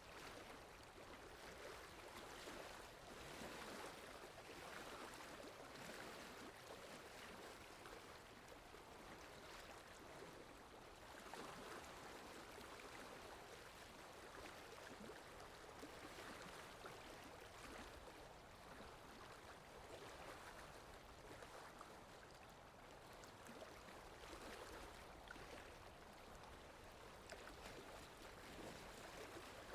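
Faint water lapping with wind: a continuous wash of noise that swells and eases every few seconds.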